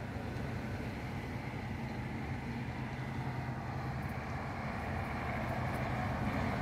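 Diesel train's engine idling at the platform: a steady low hum that grows slightly louder near the end.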